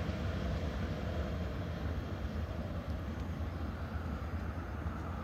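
Low, steady rumble of a departing KORAIL CDC diesel railcar train heard from a distance, slowly fading.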